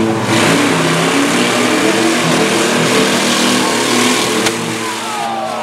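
Pickup truck engines revving hard in a demolition derby, their pitch rising and falling as the trucks maneuver. A single sharp bang comes about four and a half seconds in.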